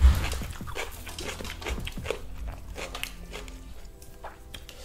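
Close-miked eating of crispy fried chicken: chewing and the crust crackling as a piece is pulled apart, a run of short crunches and clicks that is loudest at the start and thins out near the end.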